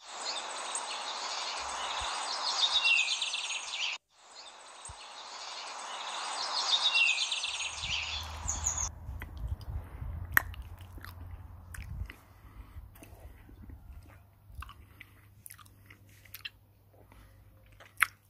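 A loud, steady rushing noise plays for about four seconds, cuts off sharply, then plays again for about five seconds. After that, a man chews food with his mouth right at the phone's microphone: irregular crunches, clicks and lip smacks over a low hum.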